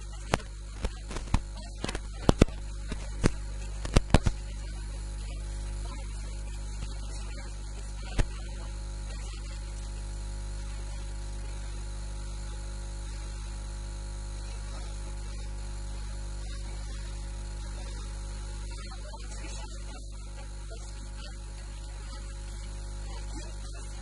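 Steady low mains hum, with a run of sharp clicks over the first four seconds or so and one more about eight seconds in.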